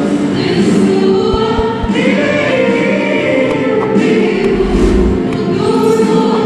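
Mixed choir of men and women singing a Coptic Christian hymn (tarnima) into microphones, the voices holding long notes together.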